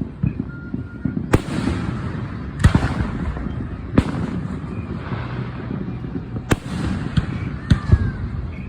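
Fireworks going off: about six sharp, irregularly spaced bangs over a steady low rumble.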